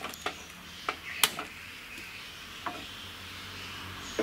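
Gas stove burner being lit: a few sharp clicks, the loudest about a second in, then the steady hiss of the burning gas.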